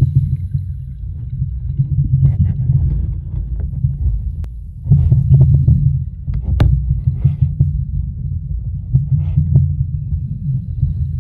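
Heard from underwater in shallow surf: a heavy low rumble of churning water that swells and eases every few seconds, with scattered crackles and a few sharp clicks.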